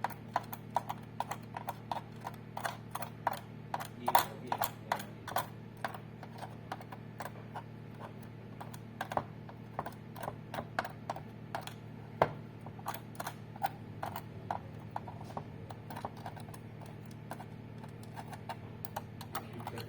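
Irregular light clicks and taps, several a second, with a few louder knocks, over a steady low hum.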